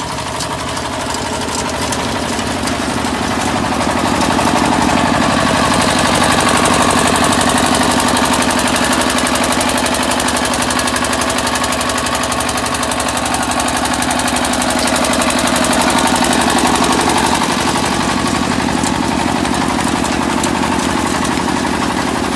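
Forage reaper's diesel engine running steadily with a fast, even beat as the machine cuts green fodder; it grows louder about four seconds in and swells twice as the reaper passes close.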